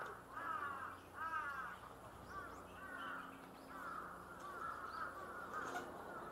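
Crows cawing over and over, a long run of short harsh caws coming a couple of times a second, with a few faint higher bird chirps among them.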